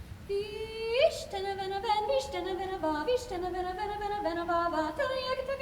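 Treble choir singing in several parts, sweeping up together about a second in and then moving through changing notes, with crisp consonants. The words are in an invented language.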